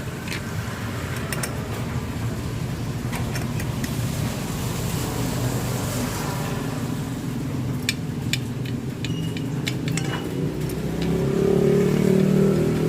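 A motor vehicle engine running nearby, growing louder about eleven seconds in, over a steady low rumble with scattered sharp clicks.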